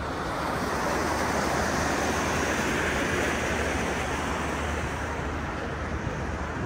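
Steady rushing of wind and sea, swelling about a second in and easing off near the end, over a constant low hum.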